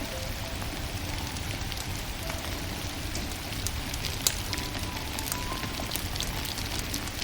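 Wood fire burning, crackling with scattered sharp pops over a steady hiss, one louder pop about halfway through. Soft, slow music notes play faintly underneath.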